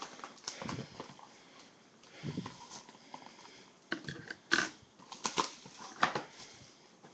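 Cardboard hobby boxes of trading cards being handled and unwrapped by hand: irregular crinkles, scrapes and taps, with a few sharp loud ones between about four and six seconds in.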